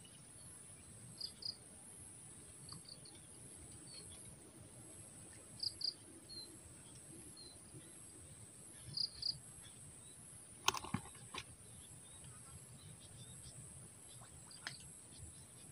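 Faint, steady high-pitched insect chorus, with short double chirps every few seconds and one sharp click about two-thirds through.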